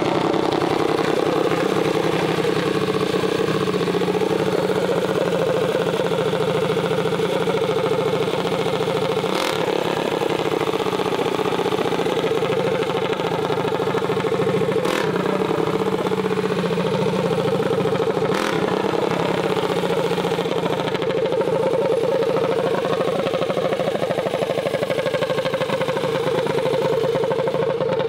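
Mini bike's small engine running steadily, its pitch wavering a little, with three sharp clicks along the way.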